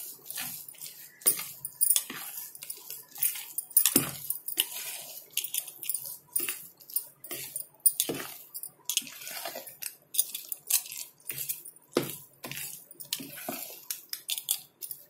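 A metal spoon stirring thick, coarse idli batter in a plastic mixing bowl. It makes repeated irregular scraping and knocking strokes, about two or three a second, as it folds the added spice powders and soda through the batter.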